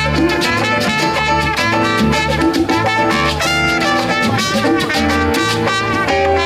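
Band music with a steady beat, a pulsing bass line and plucked guitar, in a salsa-like Latin style.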